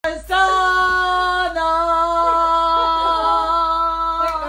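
Singing: a voice holding long, steady notes, stepping down slightly in pitch about a second and a half in.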